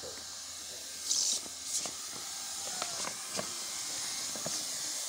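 Handheld hot-air plastic welding gun blowing a steady hiss while welding a black geomembrane dam liner. A brief louder rush comes about a second in, and a few light clicks follow.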